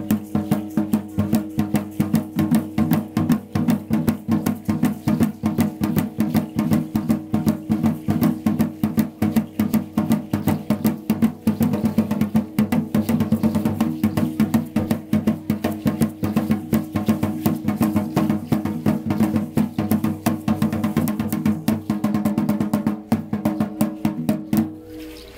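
Drumming for an Aztec-style danza: a drum beaten in a fast, steady rhythm. It stops abruptly just before the end.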